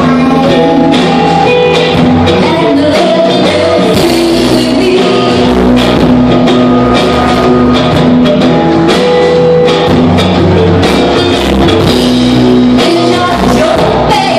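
Live rock band playing loudly: drum kit, electric bass and electric guitar, with a woman singing at a synthesizer.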